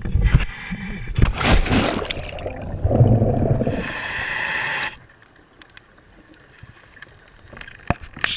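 A scuba diver going into the sea from a dive boat: splashing, rushing water, then the muffled quiet of being underwater. About four seconds in there is a hiss of about a second, a breath through the regulator, and after it only faint scattered clicks.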